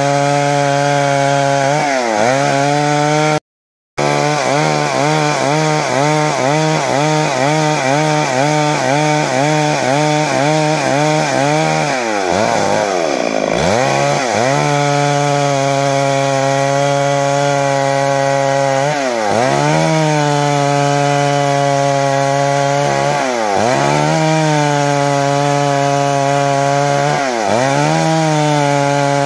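Stihl MS 382 two-stroke chainsaw running at full throttle while ripping a log lengthwise. The engine pitch wavers under load and dips briefly several times before picking back up. The sound cuts out for a moment about three and a half seconds in.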